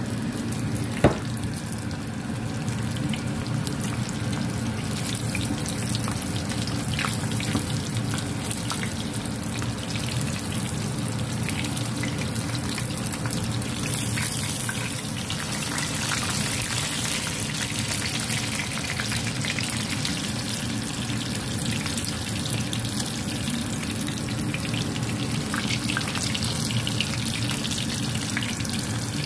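Fish frying in hot oil in a pan: a steady sizzle with scattered small crackling pops over a low steady hum, and one sharp click about a second in. The sizzle brightens around the middle as the fish is turned with tongs.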